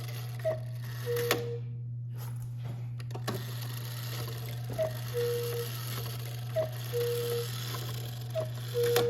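Bellows-driven cuckoo of a Johann Baptist Beha model 512 Black Forest cuckoo clock calling four times. Each call is a short higher note followed by a longer lower one, with a longer pause after the first call. A few clicks and a steady low hum sound underneath.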